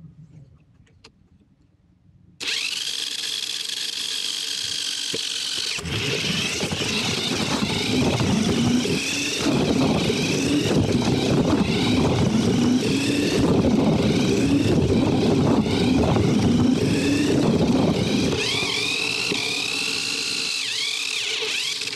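Engines revving: a loud, dense engine sound that starts abruptly a couple of seconds in, with repeated rises and falls in pitch, and cuts off suddenly.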